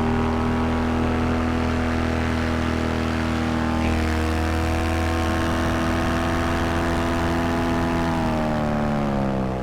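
Vittorazi Moster 185 single-cylinder two-stroke paramotor engine and propeller running steadily at high power in flight. About eight seconds in, the engine is throttled back and its pitch falls.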